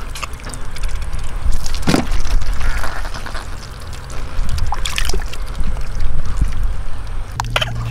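Hands digging and scooping through wet mud and muddy water in a shallow trench: squelching and sloshing, with short sharp splashes about two seconds in, about five seconds in and near the end, over a steady low rumble.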